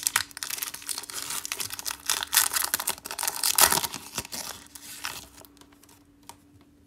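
Panini football card pack's wrapper being torn open and crinkled, crackling densely until about five seconds in, then a few light clicks as the cards are handled.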